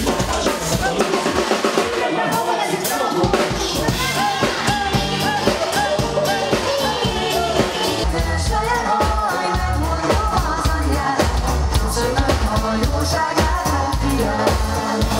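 Live band music: drum kit, bass and singers with a steady dance beat, the bass growing heavier about halfway through.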